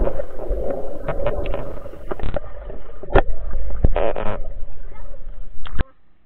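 Muffled underwater sound through a waterproof action camera in a swimming pool: low rumbling water noise with bubbling and a few sharp knocks, cutting off suddenly near the end.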